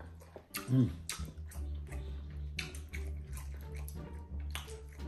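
Wet chewing and mouth smacking from eating fish and pounded yam by hand, heard as repeated short clicks, over soft background music with a steady low bass. A brief voice-like sound comes about a second in.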